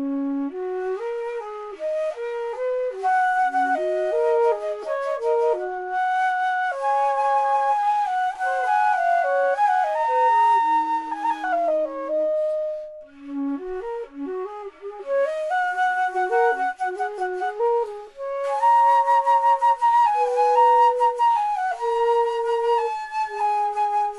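3D-printed baroque flutes (traversos) playing a melody, at times two lines together, with short breaks about halfway through and again a few seconds later.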